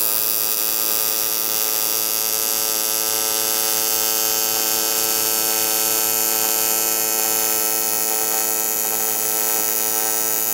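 AC TIG welding arc on 2.5 mm aluminium, a steady buzz at the machine's 110 Hz AC frequency, holding unbroken while a bead is run.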